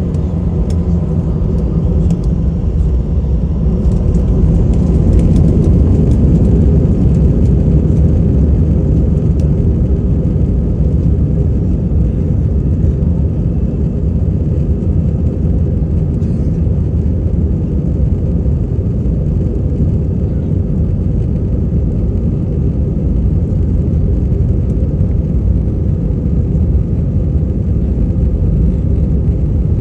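Jet airliner's engines and airframe rumbling heard from inside the passenger cabin during takeoff, a loud, steady low rumble that swells over the first few seconds and then holds.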